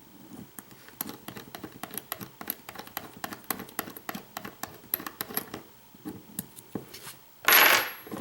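Quick run of small metal clicks and taps as a pin-tumbler lock is being taken apart by hand, then a short, louder scraping rattle near the end.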